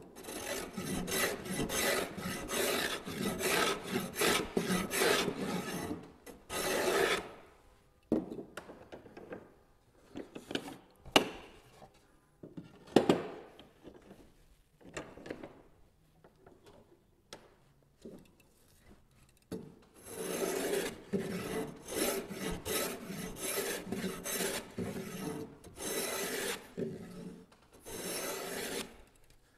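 Hand plane shaving the edge of a wooden board in quick repeated strokes. The planing stops about seven seconds in, a few sharp knocks follow, and the planing starts again about twenty seconds in.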